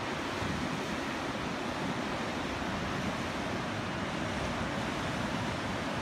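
Ocean surf breaking and churning over coastal rocks: a steady rush of foaming water.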